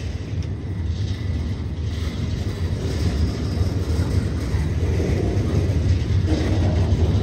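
Freight train cars rolling past with a steady low rumble that grows slightly louder.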